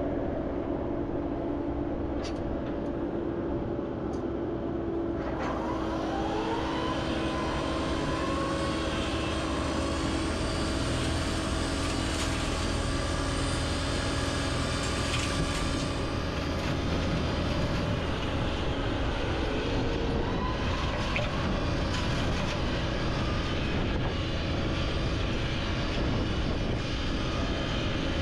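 Excavator's diesel engine and hydraulics running steadily, driving a flail mower attachment. About five seconds in, the sound grows fuller and brighter and a whine rises in pitch over a couple of seconds, as if the machine is spinning up.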